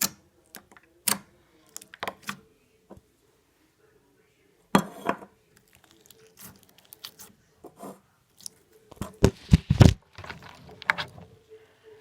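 Slime being handled and poked: irregular sharp clicks and short sticky crackles, with a cluster of louder pops about nine to ten seconds in.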